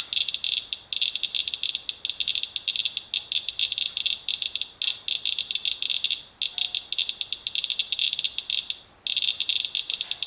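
Radalert Inspector Geiger counter clicking rapidly and irregularly at a reading of about 0.3 mR/hr and climbing. This is a high count rate from a paper-towel wipe of rainwater, which the owner takes for radioactive fallout at dozens of times background.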